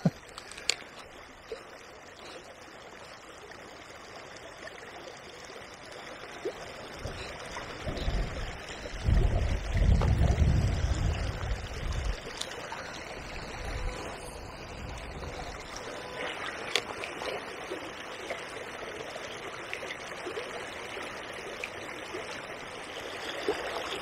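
Small river running steadily over its bed, a constant rush of flowing water. Gusts of wind buffet the microphone with a low rumble around the middle, strongest for a few seconds before easing off.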